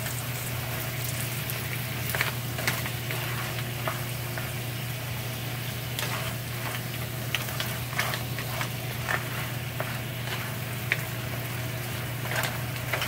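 Cracked Dungeness crab pieces sizzling steadily in hot oil and sauce in a nonstick frying pan. A wooden spoon stirs them, with scattered clicks and knocks of spoon and shell against the pan over a steady low hum.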